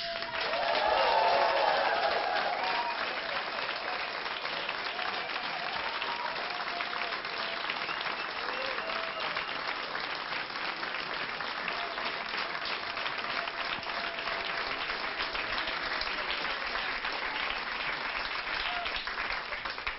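Live audience applauding, with a few voices cheering in the first couple of seconds when it is loudest, then steady clapping that stops abruptly at the end.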